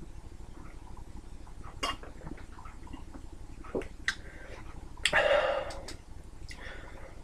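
A person chugging a shotgunned can of iced tea: faint gulps and a few small clicks, with a louder breathy burst about five seconds in.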